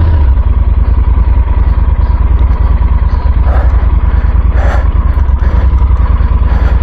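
Heavy adventure motorcycle's engine running at low revs with a fast, even pulse while ridden on a rough off-road trail, with two brief clatters a little past the middle.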